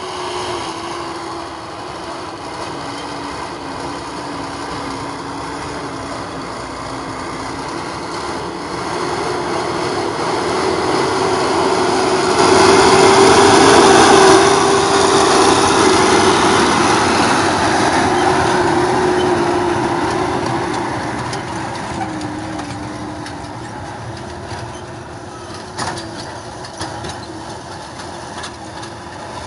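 Liaz ŠT 180 forestry skidder's diesel engine running steadily at work, growing louder to a peak about halfway through and then easing off. A sharp click comes near the end.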